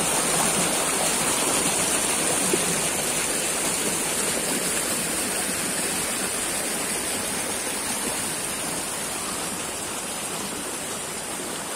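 Stream water rushing over flat rock slabs in small cascades, a steady rushing that grows gradually quieter toward the end.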